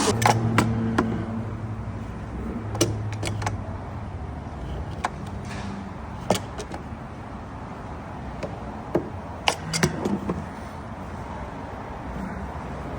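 Scattered sharp clicks and light knocks of car parts being handled, with a brief low hum near the start over a steady background noise.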